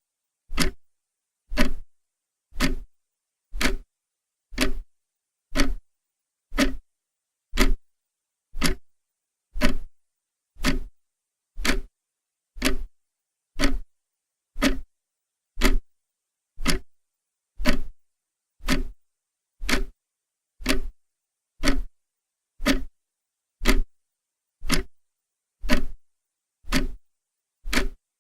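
Clock ticking steadily, about one tick a second, each tick short and sharp with silence between.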